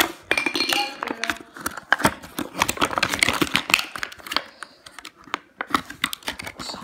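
Clear plastic toy packaging being handled and crinkled, with a close, irregular stream of small clicks, taps and crackles.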